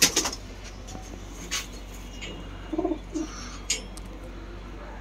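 Domestic pigeon cooing, a short low two-part coo about three seconds in, with a few sharp clicks before and after it.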